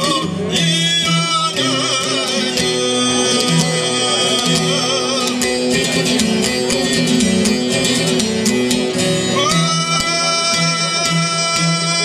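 Male folk singer with a long-necked plucked lute: a sung phrase at the start, then an instrumental passage of rapid plucking, then the voice comes back about two-thirds of the way through on a long held note over the lute.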